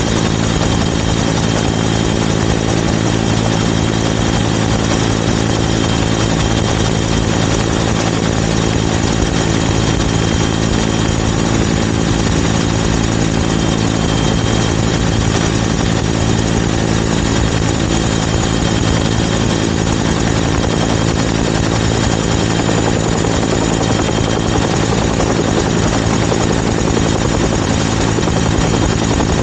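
Helicopter in flight, heard close from a camera mounted on its outside: steady engine and main rotor noise with no change in pitch or level.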